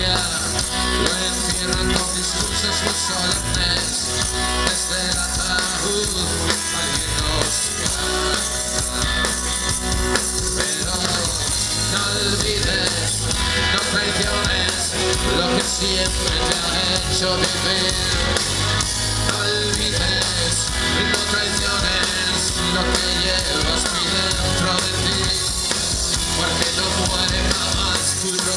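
Rock band playing live through a stage PA: electric guitars, bass guitar and drum kit at a steady loud level, with a man singing lead into a microphone.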